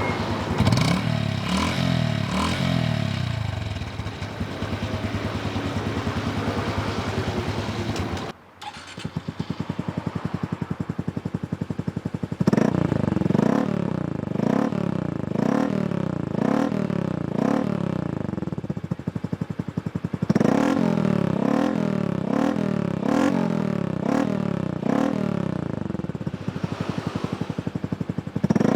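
Honda CT125's air-cooled single-cylinder four-stroke engine running through an aftermarket full exhaust system, revved in the first part. About 8 s in, the sound cuts to another exhaust: steady idle, then repeated quick throttle blips, about one a second.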